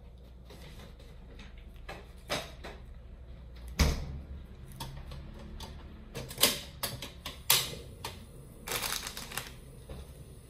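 A portable gas stove being lit: sharp clicks from turning its control knob and sparking the igniter, several in a row, with a heavier knock about four seconds in.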